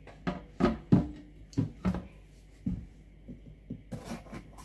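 Kitchen knife cutting through a red bell pepper and knocking on a plastic cutting board: a run of sharp chops, about six strong ones in the first three seconds, then a few lighter taps.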